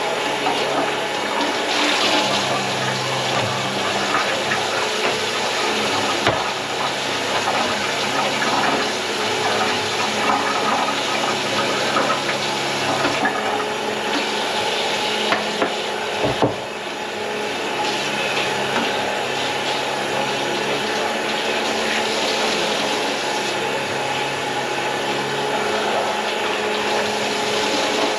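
Tap water running steadily into a kitchen sink and down its drain. There is one knock partway through.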